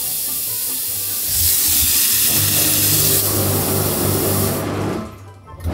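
Toilet flushing with a loud rushing hiss of water; about two seconds in, the steady low hum of the toilet's macerator pump joins as it starts pumping the waste water away. Both stop just before the end.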